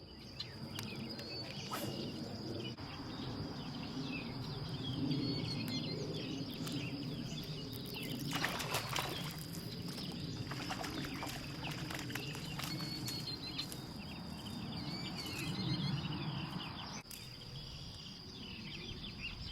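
Outdoor rural ambience: birds chirping over a steady high-pitched whine, with a low rumble underneath. A cluster of clicks and rustles comes about eight to ten seconds in.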